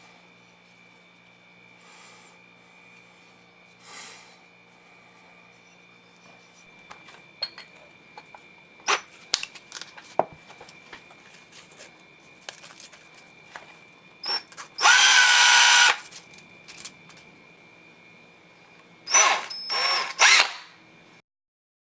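Scattered clicks and knocks of handling tools, then a power drill runs for about a second and a half, and near the end is run again in a few short bursts, its pitch shifting as it spins up and down.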